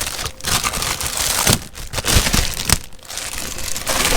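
Plastic and cardboard packaging crinkling and rustling as a power tool is unwrapped, with a couple of sharp knocks.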